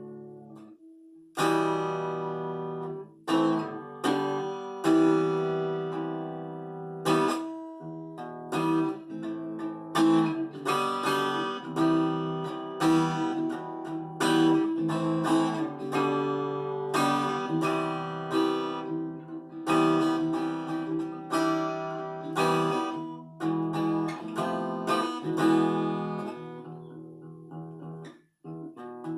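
Epiphone Lil Tex travel acoustic guitar, played unplugged, strumming basic chords about one stroke a second, each chord ringing on into the next.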